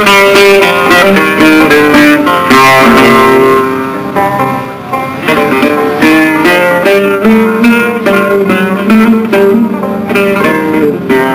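Algerian chaâbi music: an instrumental opening of quick plucked-string melody, led by a mandole.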